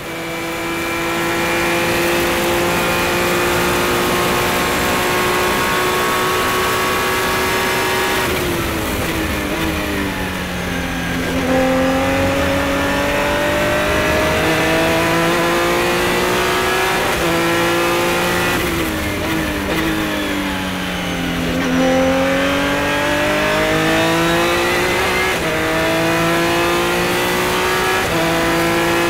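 Revolution A-1 prototype race car's engine from the cockpit, running hard at full throttle. Twice, about eight and nineteen seconds in, the pitch drops in steps as it downshifts under braking for a corner, then climbs again through the gears as the car accelerates.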